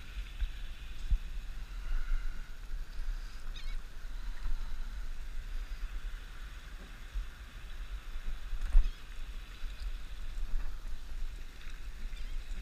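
Wind buffeting an action camera's microphone as a steady low rumble, with light water sounds and a sharp knock about nine seconds in.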